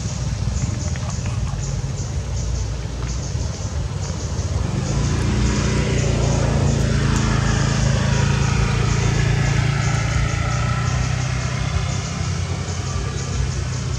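A motor vehicle's engine running steadily in a low rumble that grows louder about five seconds in and stays up.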